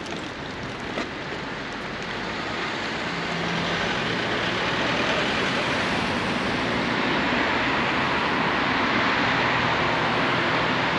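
Road traffic passing close by: cars driving past with tyre and engine noise. It swells about three seconds in and stays up.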